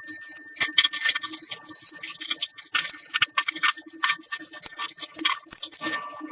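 Rapid, irregular clicking and scraping of hand tools on metal parts, over soft background music; the clicking stops about six seconds in.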